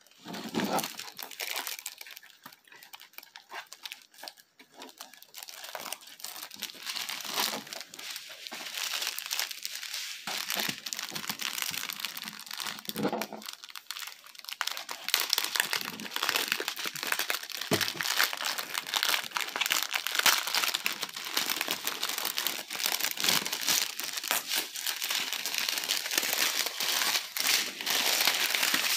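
Clear plastic packaging crinkling and rustling as hands unwrap a diamond-painting accessory pack and handle small plastic bags of drills; the crinkling gets louder about halfway through.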